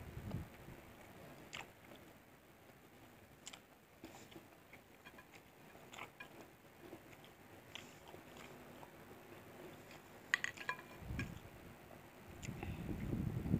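Close-up eating sounds: chewing at the start and again from about eleven seconds in, with faint scattered clicks and crackles in between as fingers pick apart fried mackerel on a plate, and a short cluster of sharper crackles about ten seconds in.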